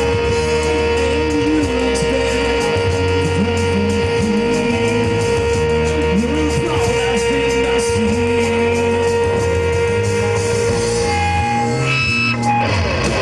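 A rock band playing live: a steady bass line and drum beat under a held, sustained guitar tone and gliding guitar lines. Near the end the sustained tone stops and strummed electric guitar comes in.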